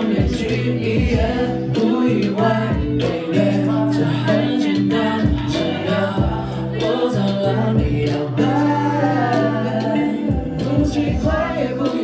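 Live music: a man singing into a handheld microphone over a backing track with held low chords and frequent short drum hits.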